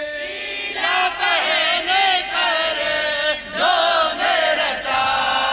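A group of young men chanting a naat in chorus into a microphone through a PA system, their voices rising and falling in a wavering melodic line.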